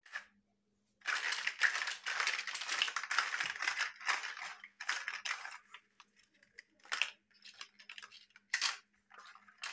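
Hollow plastic building blocks clattering and clicking against each other and the table as hands shuffle through a pile. A dense run of clatter for a few seconds after a brief pause, then scattered single clicks and short knocks, with one sharp clatter near the end.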